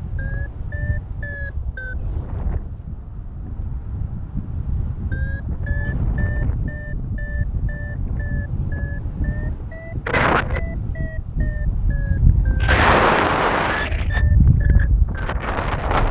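Paragliding variometer beeping in short quick pulses, about two to three a second, stopping for a few seconds after the start and then resuming with its pitch rising a little near the middle, the tone that signals the glider climbing in lift. Wind rushes steadily over the microphone, with a few louder gusts in the second half.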